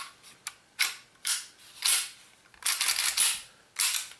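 Metal slide of a chrome WE M9 Long gas blowback airsoft pistol being slid onto the frame rails and into place: a series of about six short metallic scrapes and clicks.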